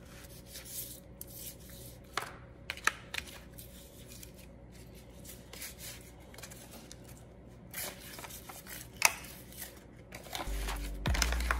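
Hands working seasoning and Worcestershire sauce into raw lamb chops: soft rubbing with a few light clicks and taps of a dish. Background music with a low bass comes in near the end.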